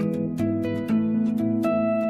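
Background music: a plucked-string instrumental, with picked notes several times a second over held lower notes.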